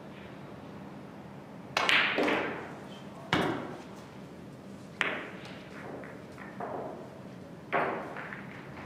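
Hard clacks of pool balls: a cue shot about two seconds in, then several more sharp single clacks, each ringing briefly, as balls knock together while they are gathered for the next rack.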